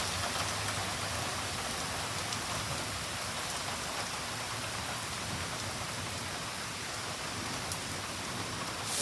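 Heavy rain falling steadily on surfaces, an even wash of noise.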